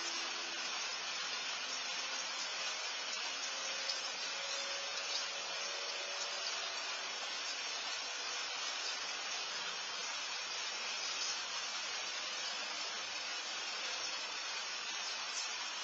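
Steady, even hiss from a Nest security camera's microphone, with no distinct events over it.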